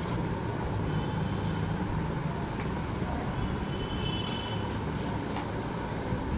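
Steady low background rumble with a few faint taps and two brief, faint high squeaks.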